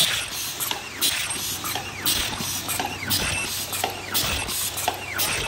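MG-HC60 double-wall paper cup machine running: rhythmic mechanical clatter with a sharp knock about once a second, short high squeaks from its moving parts, and a steady low hum.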